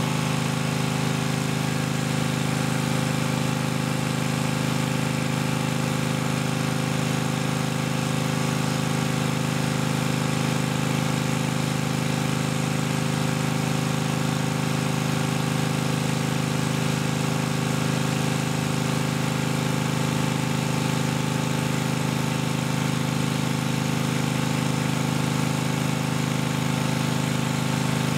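A pump running steadily, pushing liquid through the flow meters during a calibration run. It makes an even, unchanging drone with a low hum and a few fixed higher tones.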